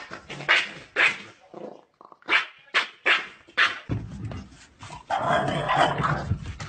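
Dogs barking: a run of short, sharp barks about two a second, then a longer, denser stretch of yapping near the end.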